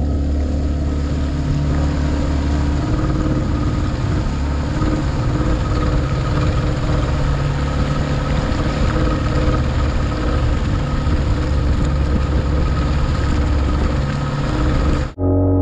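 Speedboat engine running steadily under way, with water rushing along the hull. The sound cuts off abruptly near the end.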